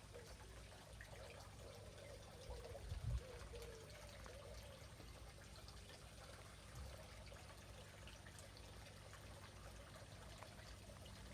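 Near silence: room tone with a faint steady low hum and a couple of soft low bumps, the clearest about three seconds in.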